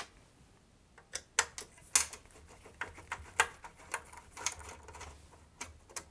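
Irregular clicks and taps of a screwdriver and fingers working on the screws, circuit board and aluminium frame of an opened Husqvarna Viking Designer SE sewing machine during disassembly. They start about a second in.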